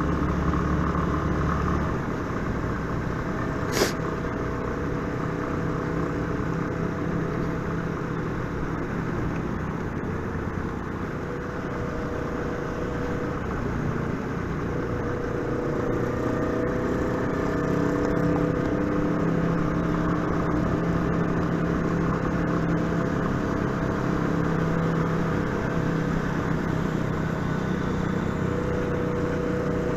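Motorcycle engine running on the road, its pitch rising and falling with speed, under steady wind and road noise. A brief sharp click comes about four seconds in.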